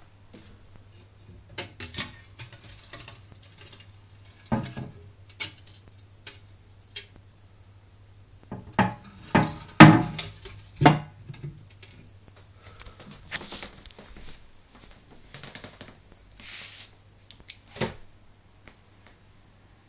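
Scattered sharp knocks and clinks of hard objects being handled, loudest in a quick cluster about nine to eleven seconds in, over a faint steady low hum.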